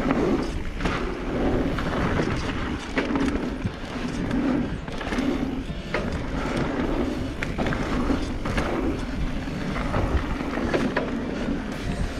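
Specialized Turbo Levo electric mountain bike riding fast down a dirt singletrack: steady tyre noise on the dirt, with frequent sharp clicks and rattles from the bike over bumps.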